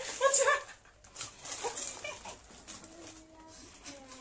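A short vocal exclamation, then a few dry crackles from water crackers being eaten and their plastic packets being handled, with a faint hum near the end.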